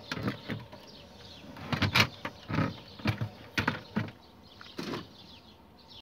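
Irregular knocks and clatter of handling inside a refrigerator compartment, several short hits with gaps between them, the loudest about two seconds in.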